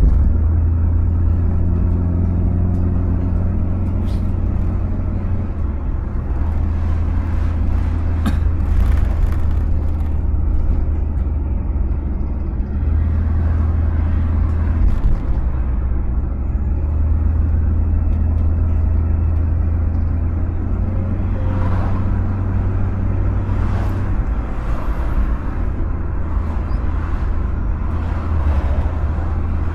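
Car driving along a road, heard from inside the cabin: a steady low engine and tyre rumble, with a few faint knocks now and then.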